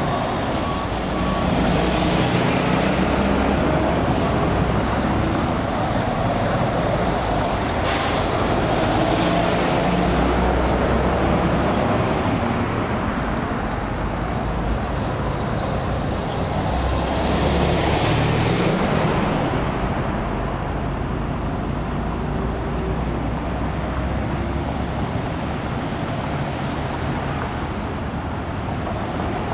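Steady highway traffic and idling heavy-vehicle engines, with a low rumble that swells as vehicles pass. A truck's reversing alarm beeps and stops about a second in, and a short hiss comes about eight seconds in.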